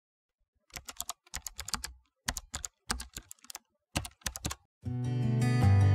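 Computer keyboard typing sound effect: four bursts of rapid key clicks with short gaps between them. Music starts about five seconds in.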